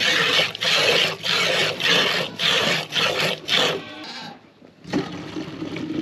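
Goat being hand-milked: milk squirting into a stainless steel pail in rhythmic hissing spurts, about two a second, alternating teats. After about four seconds the squirting stops, and after a brief break a quieter steady sound follows as the milk is poured from the pail into a stainless steel can.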